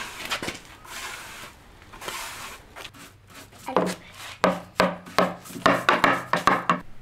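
Paintbrush scrubbing wood stain onto a bare wooden tabletop: soft rubbing strokes at first, then a quicker run of sharper strokes, about three a second, over the last three seconds.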